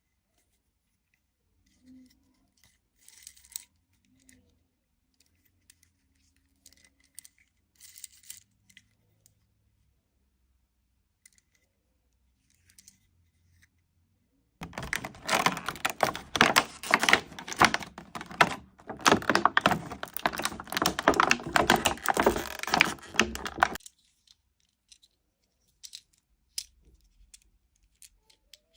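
Toy packaging being handled and opened: a few light clicks and rustles, then about nine seconds of loud, dense crinkling and tearing that stops suddenly.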